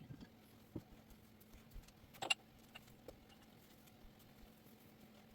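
Quiet room with a steady low hum, a few light knocks and taps, and one sharp clink a little over two seconds in.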